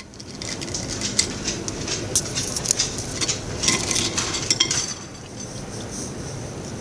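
Clinking and scraping on a plate as a lump of M&Ms, baked hard in the microwave, is cracked and broken up. The clicks come thick for about the first five seconds, then the sound goes quieter.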